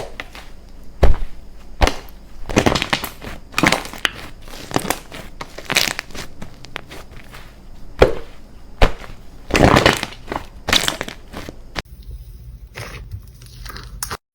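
Slime being squeezed and kneaded by hand: irregular crackly squishes and crunches, one after another, softer near the end.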